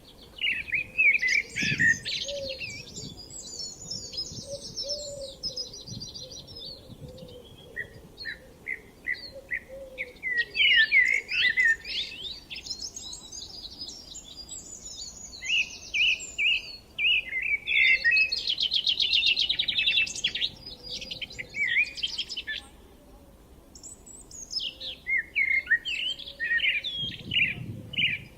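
Several songbirds singing in a spring dawn-chorus style, with overlapping quick chirping and trilling phrases separated by brief pauses.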